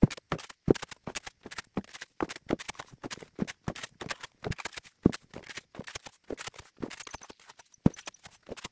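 Shovel blade scraping and clinking into stony dirt, with soil and stones tipped into a wheelbarrow: a dense, irregular run of sharp knocks and scrapes, several a second.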